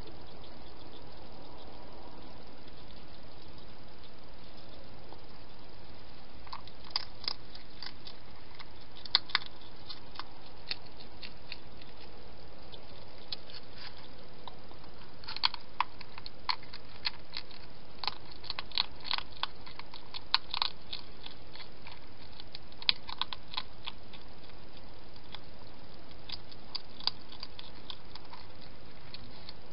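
A wild hedgehog eating from a plastic dish: irregular crunching clicks of its chewing, coming in spells from several seconds in, over a steady hiss.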